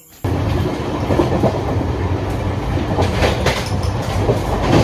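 Passenger train coach running on the rails: a loud, steady rumble with clickety-clack from the wheels over the rail joints. It cuts in abruptly just after the start.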